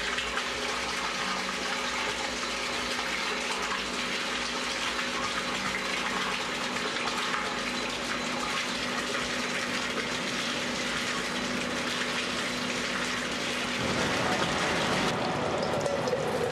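Cooling water pouring steadily from a return pipe and splashing into a tank, with a faint steady hum under it. About 14 seconds in, the sound changes to dirty water gushing from the separator's drain into a metal measuring jug.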